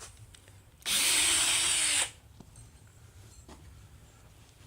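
Power drill boring a hole through wood for a bolt, running in one loud burst of about a second and then stopping.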